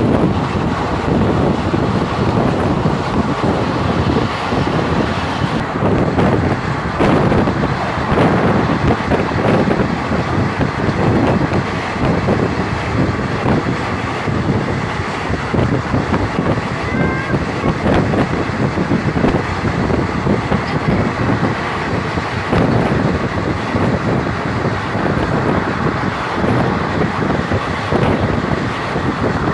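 Wind buffeting the microphone: a loud, steady rushing rumble that comes in gusts.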